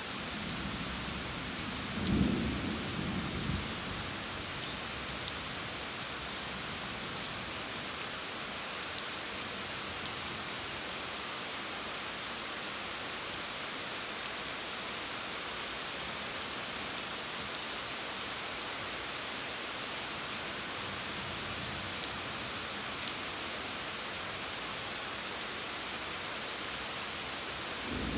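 Steady rain falling hard during a thunderstorm, with a low rumble of thunder in the first few seconds, loudest about two seconds in, and another rumble of thunder starting right at the end.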